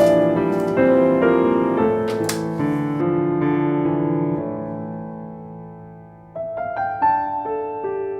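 Background piano music: a slow phrase that dies away over the first six seconds, then a new phrase of single notes begins.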